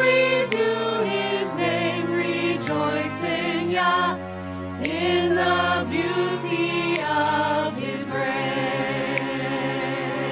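Worship music: a vocal group singing wordless harmonies with vibrato over sustained low notes.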